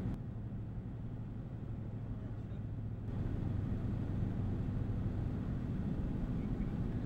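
Steady low rumble of a car on the road, heard from inside the cabin. It gets a little louder about three seconds in.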